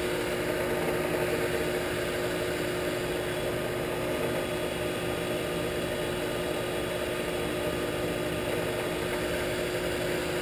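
Shopsmith 10ER headstock spinning at steady speed, belt-driven by a Leeson 3/4 HP DC motor. The spline shaft rattles a little, a sign that it wants heavier grease.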